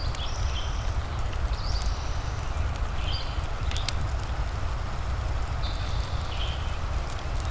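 Wood fire crackling with scattered sharp pops over a steady low rumble and a soft rain hiss, with short high chirps every second or two.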